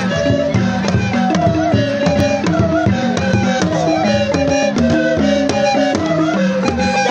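Traditional drum ensemble playing a fast, dense rhythm of many drum strokes, some pitched drums stepping between low notes, with a high melody line held and bent over it.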